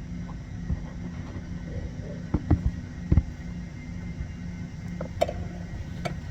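A few light knocks from the gear selector link rod's loose ball joint as it is moved, over a steady low hum. The knocking is the sign of play in the worn link rod joint.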